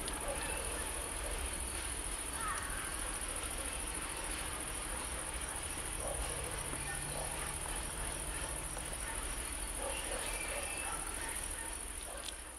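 Crickets chirping in a steady, high-pitched chorus over a low rumble, fading out at the end.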